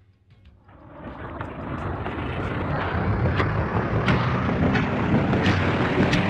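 Rushing, rumbling noise with scattered crackles, swelling up from near silence over about two seconds and then holding steady: an intro sound effect of the tape-static kind.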